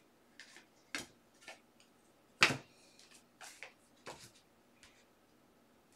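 Trading cards being handled and set down onto piles on a tabletop: a string of soft clicks and taps, with one sharper tap about two and a half seconds in.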